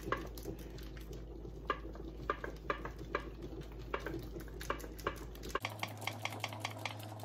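Block of mozzarella cheese being rubbed down a metal box grater, a steady run of short scraping strokes about two to three a second.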